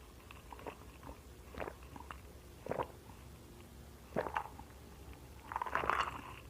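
Close-up eating sounds: a person chewing and biting into rice and goat curry eaten by hand, with a handful of short, soft mouth sounds a second or so apart, the loudest near the end.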